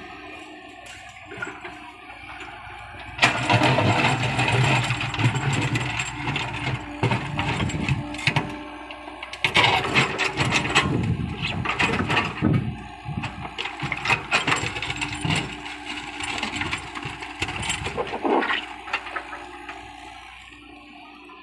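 Komatsu PC75UU excavator running steadily. From about three seconds in until near the end there is loud, rough scraping and clattering, with many sharp clicks.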